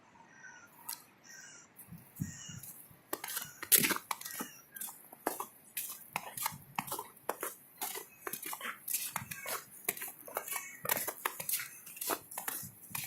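Footsteps on a hard or crunchy surface, starting about three seconds in and going on at a steady walking pace of about two steps a second.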